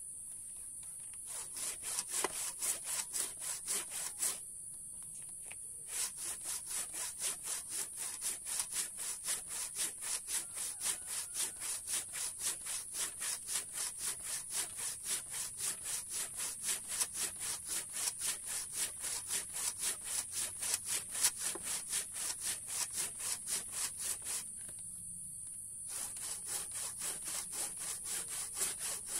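Handsaw cutting by hand through very hard mangosteen wood: a steady rasping back-and-forth of about three strokes a second. It starts about a second in, pauses briefly about four seconds in, and stops again briefly near the end.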